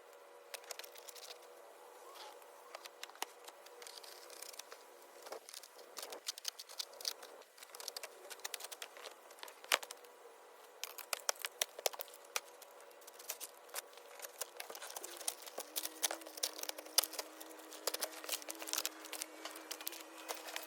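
Cardboard shipping packaging around a gun safe being cut, torn and pulled apart: faint, irregular clicks, scrapes and crinkles that come thicker in the second half, over a faint steady hum.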